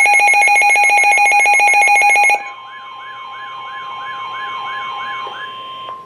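Midland NOAA weather radio sounding a warning alert: a loud, rapidly pulsing alarm tone that drops off sharply about two and a half seconds in, leaving the steady 1050 Hz NOAA Weather Radio warning tone with a siren-like warble repeating about three times a second. It signals an incoming severe thunderstorm warning.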